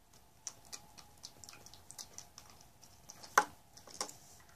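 Light, irregular clicks and taps of small plastic toy figures and toy food being handled and set down on a hard floor, with one louder tap about three and a half seconds in.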